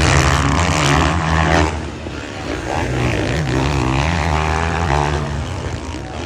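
450cc four-stroke motocross bike engine revving hard under throttle, its pitch rising and falling as the rider powers up a dirt climb and over a jump. It eases about two seconds in, then comes back on.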